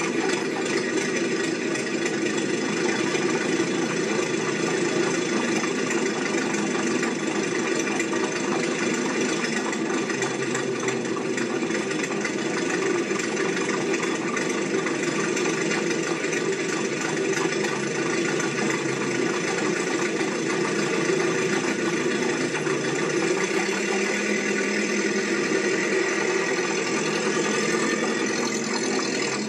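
Steady mechanical running noise that keeps going evenly without a break.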